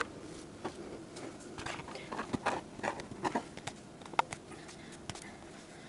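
A hot metal screw lid being twisted shut on a glass canning jar held in a cloth: faint, irregular clicks and scrapes of the lid and handling, as the freshly sterilised jar is sealed.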